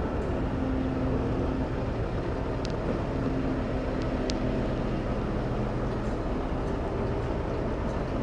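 Steady mechanical rumble with a low hum, as from a running engine, and two faint ticks a couple of seconds apart in the middle.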